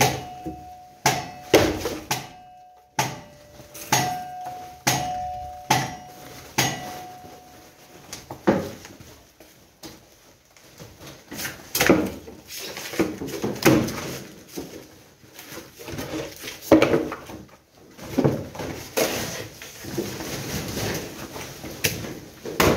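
Demolition debris being handled and bagged: a run of sharp knocks, about one a second at first, several leaving a brief ringing tone, then denser clatter and the rustle and scrape of rubble sacks with more knocks.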